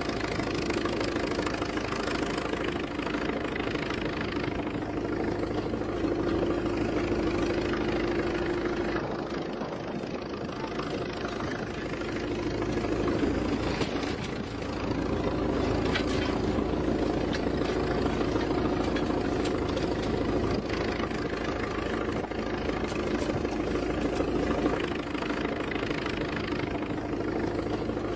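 Diesel engines of a backhoe loader and tractor running steadily at a work site, the level easing off for a few seconds around the middle and then rising again as the machines work.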